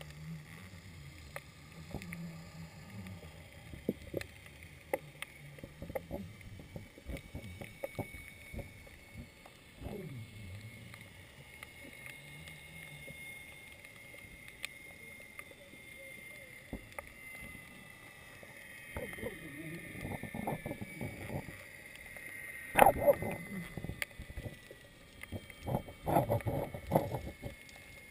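Underwater sound heard through the camera's waterproof housing: scattered sharp clicks and muffled knocks, with a faint high whine that slowly drifts lower. Louder thumps and rumbling come in bursts in the last third.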